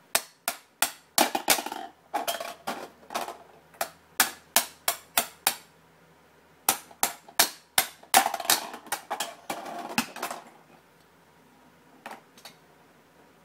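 Plastic toy mallet banging on a plastic pound-a-ball toy: quick, irregular clacks, two or three a second, pausing briefly about six seconds in and stopping about ten and a half seconds in, with two faint taps near the end.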